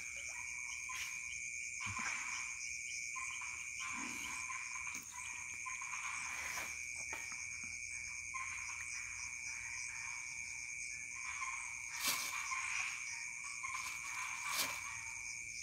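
Night-time chorus of insects and frogs: several steady, high-pitched trills running together, with a couple of brief clicks late on.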